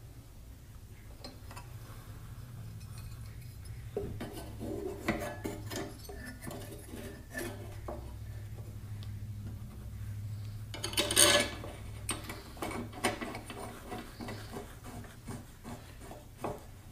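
Metal cylinder head and new head gasket being handled and set onto a Briggs & Stratton L-head engine block: light clinks and scrapes of metal on metal, with a louder clatter about eleven seconds in.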